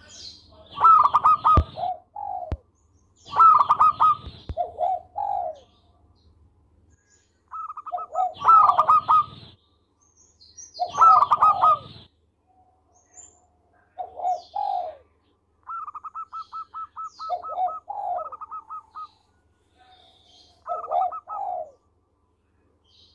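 Zebra dove (perkutut) cooing in repeated rolling phrases, several of them loud. About two-thirds of the way through comes a quick run of short, even notes.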